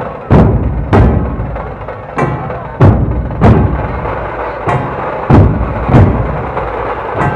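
A large dhol-tasha troupe playing in unison. Heavy dhol strokes land together about every two-thirds of a second, now and then skipping a beat, over a dense continuous rattle of drumming.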